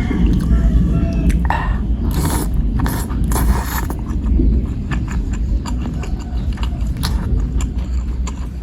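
Close-miked chewing of bakso meatballs and noodles, with many short clicks and crunches over a steady low rumble.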